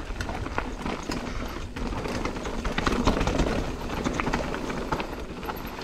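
Mountain bike rolling over a rough dirt trail: tyres on loose stones and the bike rattling, with many irregular clicks and knocks over a low wind rumble on the helmet camera.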